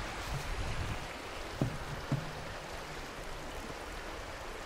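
Shallow Highland river rushing steadily over stones. Two soft knocks come about a second and a half and two seconds in.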